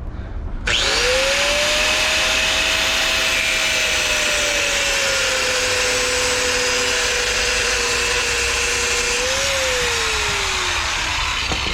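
High-speed power tool cutting through a fan motor's shaft. It spins up about half a second in, runs with a steady whine over a loud grinding hiss, its pitch sagging a little as it cuts, then winds down near the end.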